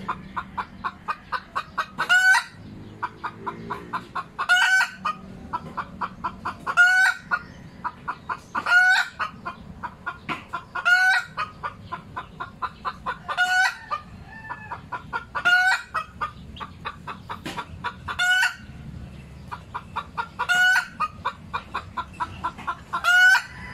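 Chicken cackling: runs of quick clucks, each ending in a loud, drawn-out squawk, repeating about every two seconds.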